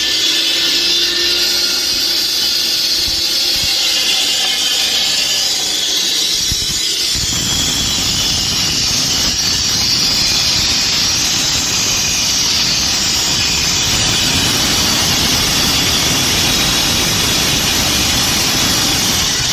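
Concrete-cutting power tool running under load: a steady, high whine and hiss. About seven seconds in, a rougher, lower grinding noise joins as the cut bites.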